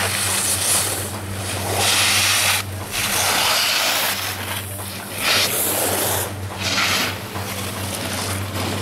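Wind buffeting the camera microphone in uneven gusts of hiss, over a steady low hum.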